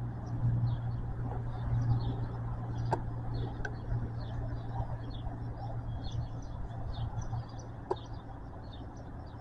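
Cessna Caravan's PT6 turboprop taking off in the distance: a steady low drone that fades over the last couple of seconds as the plane climbs away. Birds chirp throughout.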